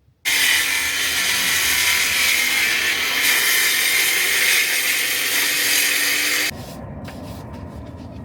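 Power saw cutting through a stair tread: it starts suddenly, runs loud and steady for about six seconds, then cuts off, leaving a quieter low rumble.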